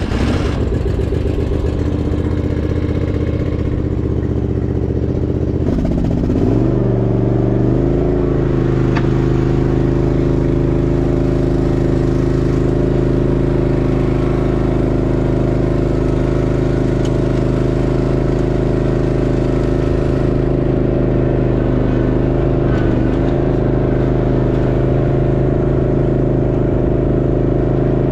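John Deere riding mower engine running just after starting: a steady drone that rises in pitch about six to seven seconds in as it speeds up, then runs evenly at the higher speed.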